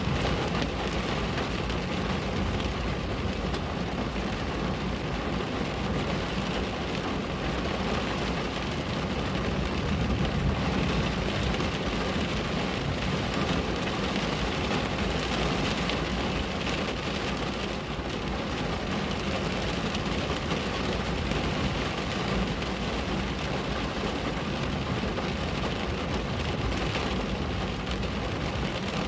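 Steady rain falling on a window, an even, unbroken hiss.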